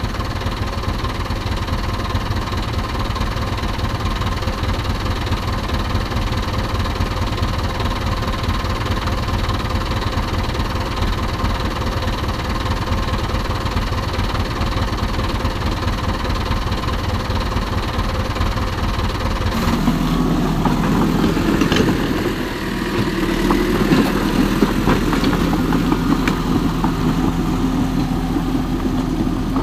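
Steady engine-like running from a toy remote-control dump truck. About two-thirds of the way in it changes abruptly to a toy remote-control bulldozer's running sound, a different steady hum with a few clicks.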